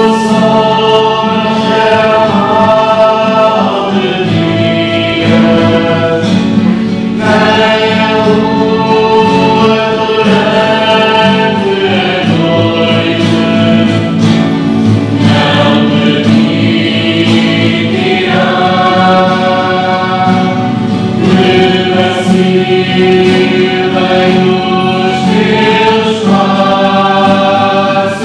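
Choir singing a slow liturgical hymn, with long held notes that change every second or two.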